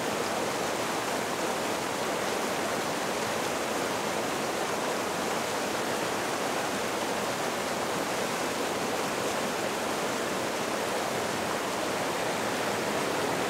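Shallow mountain creek rushing over rocks and around boulders in a steady, unbroken wash of water noise.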